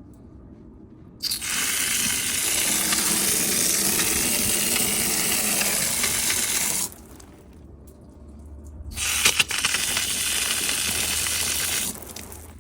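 Water jetting from a garden hose fitted with a gas valve as a pressure nozzle, spraying in two long bursts of hiss with a pause between; a few sharp knocks come as the second burst starts.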